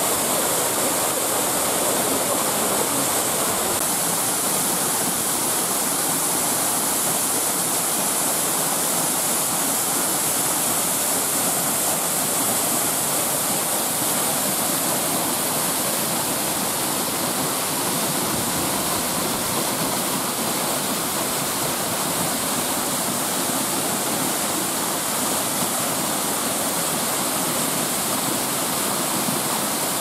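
Man-made irrigation waterfall pouring down a rock face onto boulders: a steady, loud rush of falling water with a strong hiss of spray.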